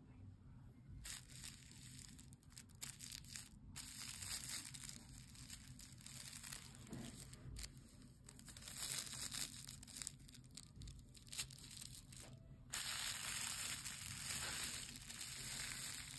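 Hands rubbing and smoothing thin tissue pattern paper laid over denim, the paper crinkling and rustling close to the microphone, with a denser, steadier rustle for the last few seconds.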